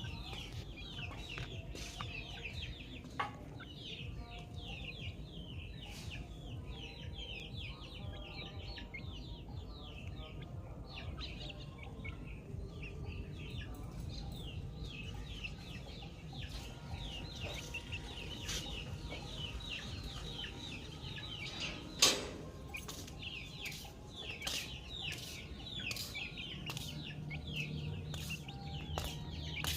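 A brood of chicks peeping without pause, many short falling cheeps overlapping. A sharp click stands out about two-thirds of the way through.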